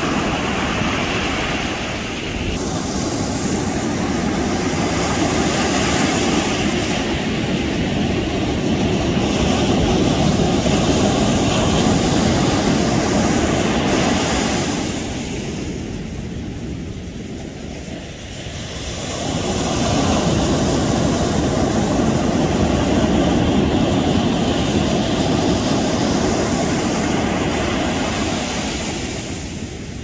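Pacific Ocean surf breaking and washing up a sandy beach, a steady low rush that eases for a few seconds about halfway through and then builds again.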